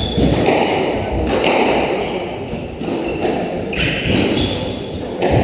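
Squash rally: the rubber ball struck by rackets and smacking off the court walls, a sharp knock every second or so, with players' footfalls on the wooden floor.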